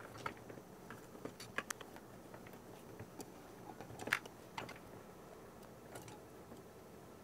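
Faint clicks and scrapes of a Phillips screwdriver turning screws out of the metal lid of a small enclosure, with scattered sharper ticks, the sharpest about four seconds in.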